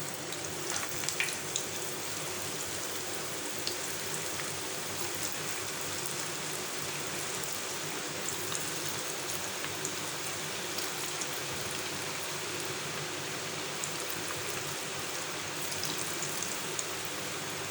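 Battered chicken pakora pieces deep-frying in a pan of hot oil: a steady sizzle with scattered small crackles.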